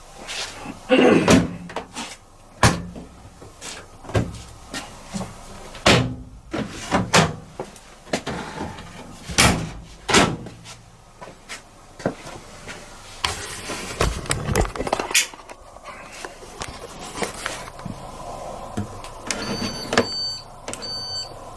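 Washing machines being handled: a run of clicks, knocks and thumps as detergent drawers and doors are shut and dials turned. Near the end come several short high beeps from a control panel as a wash programme is set.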